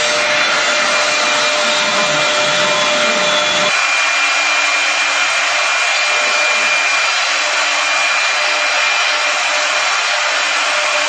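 CNC router spindle running at high speed with a steady high whine and a rushing hiss as its bit carves a wooden table leg held on a rotary axis. About four seconds in the sound changes, losing its lower rumble.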